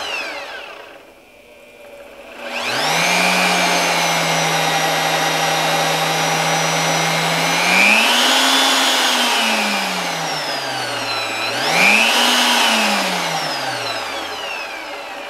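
AOCKE AX16RE magnetic drill press's 1350 W motor winding down, then spinning up again about two and a half seconds in and running steadily with a whine. Its speed is turned up and back down twice on the variable-speed dial, and it slows toward the end.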